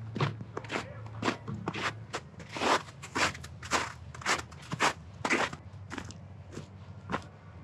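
Footsteps crunching through snow at a steady walking pace, about two steps a second.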